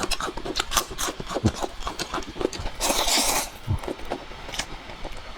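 Close-up eating of spicy fire noodles: quick wet clicks of chewing and mouth noises, with one loud half-second slurp about three seconds in.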